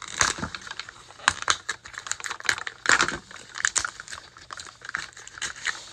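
Irregular clicking and tapping of fingernails on a plastic Mini Brands surprise capsule, with light crinkling as its printed wrapping is peeled back.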